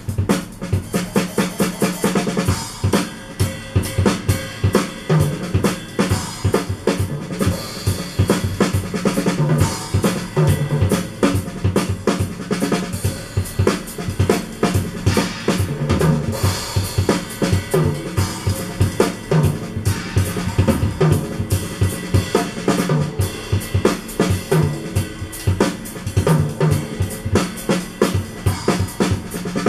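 A drum kit solo played back through old Sony SS-H12 speakers with 6-inch drivers: fast strikes on bass drum, snare and cymbals without a break, the cymbals clear and not harsh.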